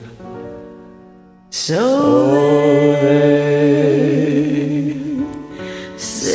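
A man and a woman singing a duet over a karaoke backing track: a soft accompaniment chord, then the voices come in together about a second and a half in and hold a long note with vibrato, fading near the end before coming in again.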